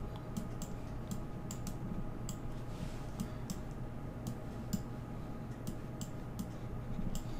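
Light, irregular clicking of a computer mouse and keys, a few clicks a second, over a faint steady electrical hum.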